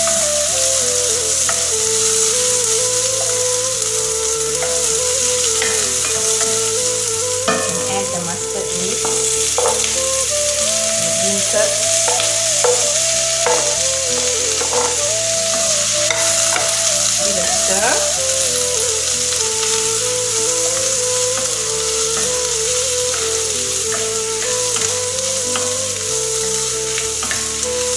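Onions, chilies and garlic sizzling in hot oil in a cast-iron pan, stirred with a spatula, which scrapes and knocks against the pan now and then, mostly in the middle stretch. Soft background music plays underneath.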